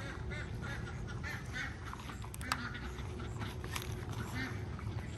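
A flock of domestic ducks quacking in short, soft, repeated calls as they walk in to roost, over a steady low rumble.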